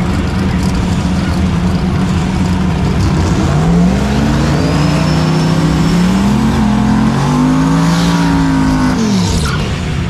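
Drag-race cars accelerating hard down the strip. The engine note rises from about three and a half seconds in, shifts pitch a few times as the cars change gear, then falls away near the end.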